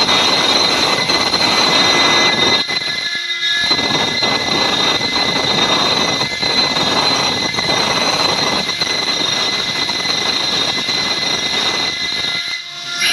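CNC stone-carving router at work: the spindle's steady high whine over the gritty noise of the bit cutting stone. The cutting noise drops away for a moment about three seconds in and again near the end while the whine carries on.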